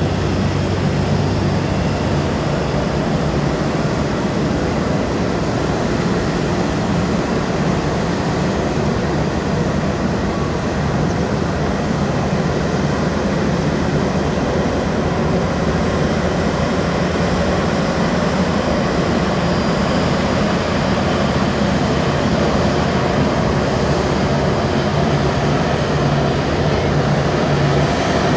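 Airliner jet engines running at taxi power: a steady rumble with a low hum underneath that holds level throughout.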